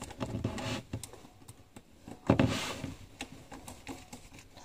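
Small clicks and scrapes of a screwdriver working a screw on a plastic terminal block while the cable wires are handled, with a brief louder rustle about two seconds in.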